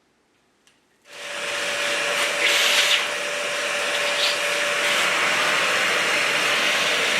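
An electric motor with a fan switched on about a second in, quickly spinning up and then running steadily with a constant whine over a rushing noise, briefly louder for a moment a couple of seconds in.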